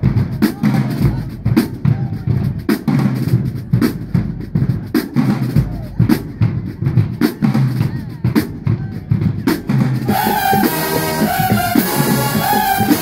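Marching band drumline playing a driving cadence of snare and bass drum strokes; about ten seconds in, the full band's horns come in with sustained, pitched chords over the drums.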